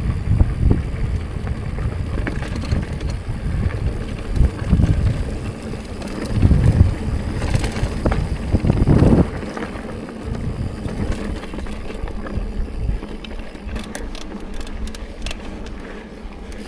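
Mountain bike being ridden over a rocky trail, with wind buffeting the microphone and the tyres rumbling over rock, loudest in the first half. Near the end comes a quick run of clicks: the creaking that the rider blames on dust getting into the crank.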